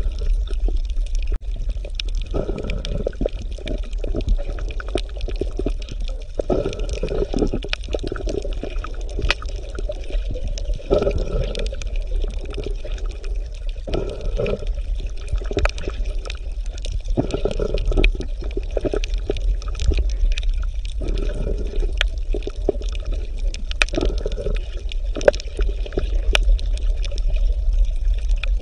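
Running stream water: a steady low rumble and hiss with uneven surges every second or two and scattered small clicks.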